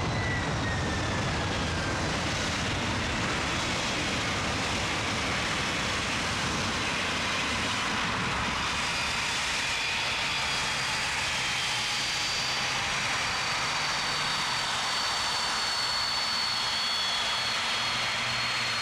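Japan Airlines Boeing 767's twin jet engines running at taxi power as the airliner taxis: a steady rush of jet noise with a high whistling whine held throughout, one tone dipping slightly in pitch near the start.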